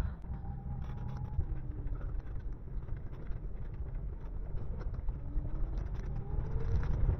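Steady low rumble of a Wuling camper van inside the cab, rolling down a steep concrete road in first gear with the engine holding it back.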